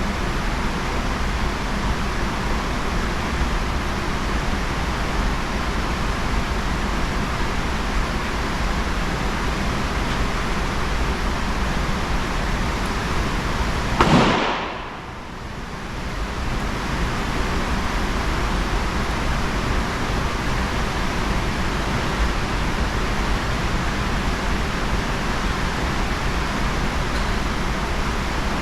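Steady hissing background noise with a single sharp bang about halfway through, a shot from a .22 single-action revolver. Right after the bang the sound drops away briefly and then comes back.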